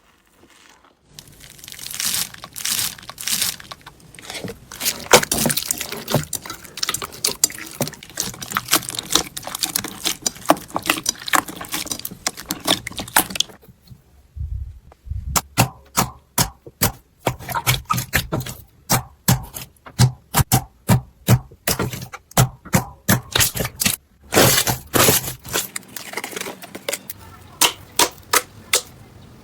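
Slime being squeezed and pressed by hand, giving runs of sharp crackling clicks and pops, with a short lull about halfway through.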